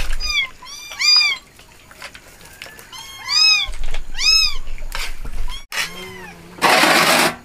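A cat meowing: a run of short, high arched meows in two quick clusters of several calls each. Near the end comes a brief burst of rushing noise.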